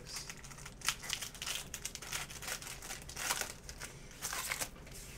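Panini Prizm basketball trading cards being handled and flipped through by hand, crinkling and rustling in irregular bursts with a few sharper snaps as cards slide off the stack.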